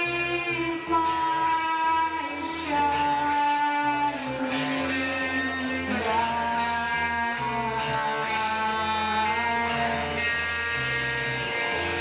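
A young rock band playing live: electric guitar to the fore, with keyboard and bass, long held notes sliding from one pitch to the next.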